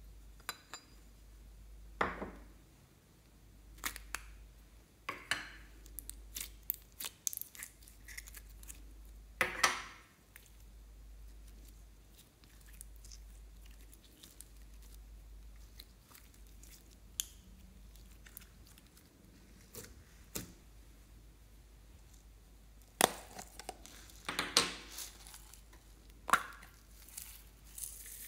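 Clear purple glitter slime being squeezed out of a plastic container and stretched by hand: scattered sticky clicks, pops and squelches at irregular moments, heaviest in a cluster near the end.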